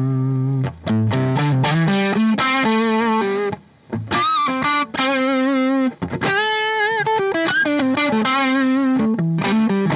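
PRS S2 Custom 24 electric guitar played through distortion: quick single-note lines with pitch bends and vibrato, and a couple of brief pauses.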